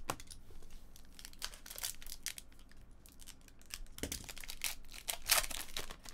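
Foil trading-card pack being slit open with a box cutter and torn apart, the wrapper crinkling in a run of crisp rustles and tears that is loudest about five seconds in. A dull knock comes just before that.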